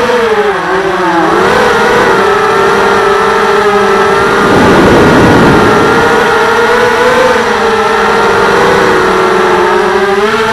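TBS Gemini FPV quadcopter's brushless motors and propellers whining, heard from the onboard camera. The pitch rises and falls with the throttle, dipping about half a second in, with a louder rush of air about halfway through.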